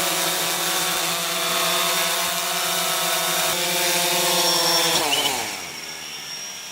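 A motor-driven machine running steadily with a whine over a loud hiss. About five seconds in it is switched off and winds down, its pitch falling as it fades.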